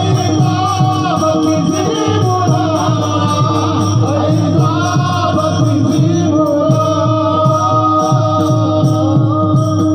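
Marathi devotional bhajan sung in a kirtan: voices singing over a steady harmonium drone, kept in time by a quick, even beat of hand cymbals and a drum.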